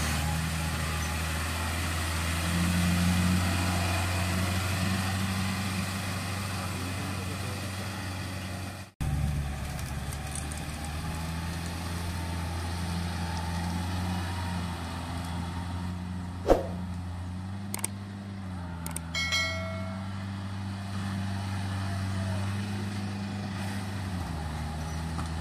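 A farm tractor's diesel engine runs steadily while the tractor tills a flooded rice paddy with a rear rotary tiller. The sound breaks off for an instant about nine seconds in. A sharp knock, the loudest sound, comes about two-thirds of the way through, followed shortly by a brief pitched sound.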